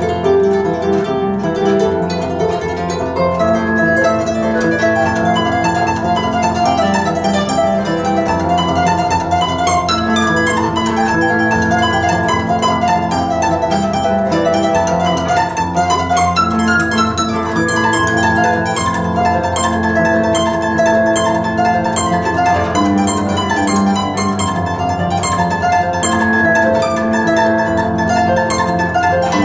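Celtic lever harp played solo: plucked melody and chords over low bass notes, with quick descending runs about ten and sixteen seconds in.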